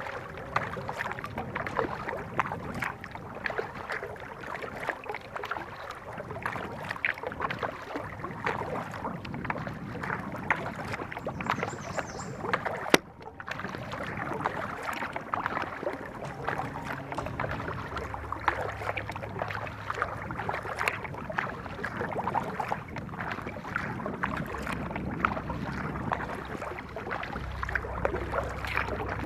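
Kayak paddle strokes on calm water: the blades dipping, splashing and dripping in an irregular patter. A single sharp click comes about thirteen seconds in.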